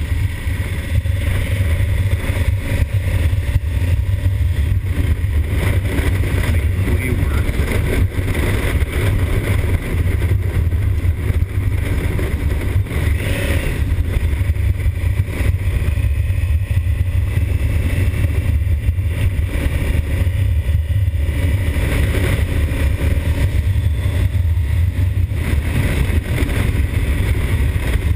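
Riding noise of a 2020 Honda Africa Twin picking up speed: its parallel-twin engine running under heavy, steady wind rumble on the microphone.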